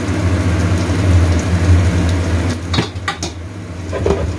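Chopped onion frying in oil in a wok, sizzling over a steady low hum from the induction cooker. A few quick clattering knocks against the pan come a little before the end.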